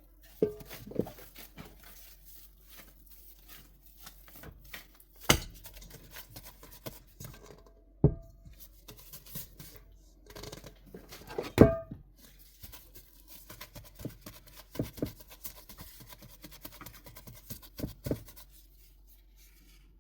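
Clear plastic cling wrap being pulled, crinkled and torn off the roll to cover a bowl of dough, with a crackly rustle throughout and several sharp knocks of the bowl and wrap roll being handled, the loudest near the middle.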